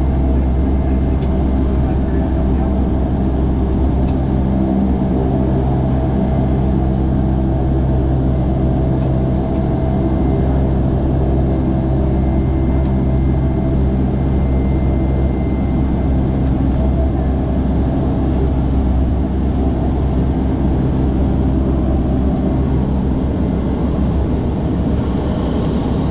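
Cessna Caravan's Pratt & Whitney PT6A turboprop engine and propeller running steadily at taxi power, heard from inside the cabin as a deep, even drone with a thin high whine above it.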